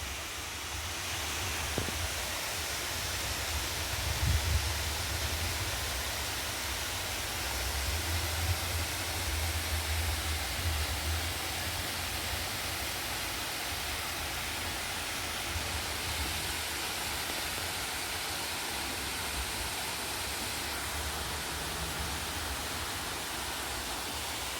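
Steady rush of a small mountain waterfall running low outside the monsoon season. A low rumble swells about four seconds in and again from about eight to eleven seconds in.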